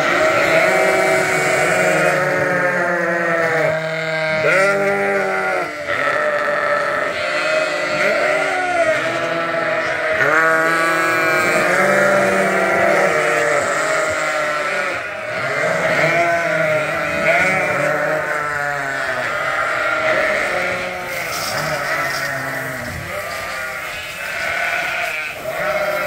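A large flock of ewes and lambs bleating at feeding time, many wavering calls overlapping without a break. It is a loud din.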